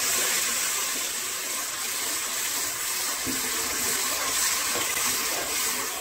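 Water sizzling and bubbling in hot ghee and roasted semolina in a karahi, a steady hiss as the mixture is stirred.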